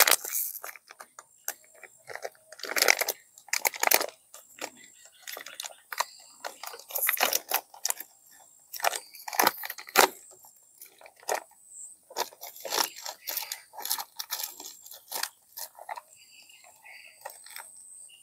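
Irregular crinkling and crunching as a packet of powdered fungicide is handled and a tablespoon of the powder is scooped out of it.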